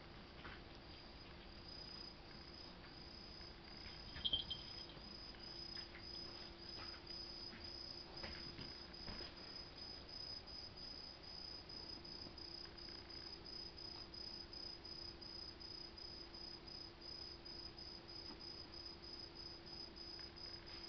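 A high insect chirp repeated steadily about twice a second, over a low steady hum. A short metallic jingle from a cat's collar bell comes about four seconds in.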